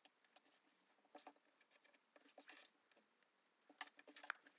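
Faint rustling and light ticks of cotton fabric pieces being handled, pinned together and smoothed flat on a tabletop.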